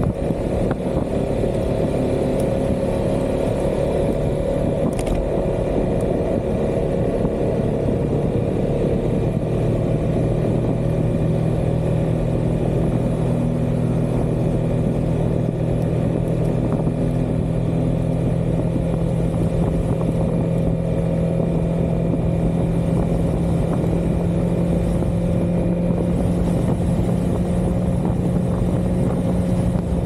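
Yamaha XMAX 300 scooter's single-cylinder engine running at riding speed over a steady rush of road and wind noise; about ten seconds in the engine note settles to an even pitch and holds.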